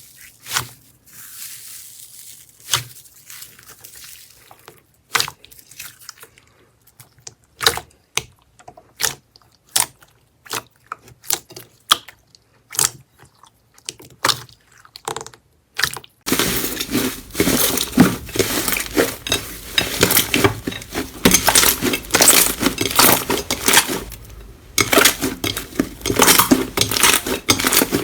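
Slime being squeezed and pressed close to the microphone. For the first half there are scattered crackles and pops; then, about halfway through, it changes suddenly to dense, continuous crunching and crackling.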